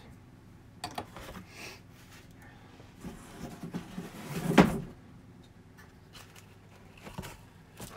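A cardboard box and its packed plastic parts being handled during unboxing: light knocks and rustles of cardboard, with a louder bump about four and a half seconds in.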